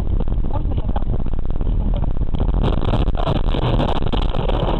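Car engine and tyre noise on a snowy road, then from about two and a half seconds in a dense crackle of many small hits as the car ploughs off the road into deep snow and snow is flung over the body and windscreen.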